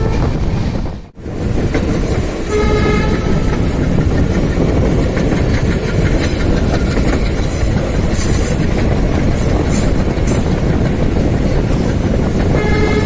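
Express train running at speed, heard on board: a loud, steady rumble of wheels on rail with scattered sharp clatters over joints and points. A short locomotive horn blast sounds about two and a half seconds in, and another horn starts near the end. The sound drops out briefly about a second in.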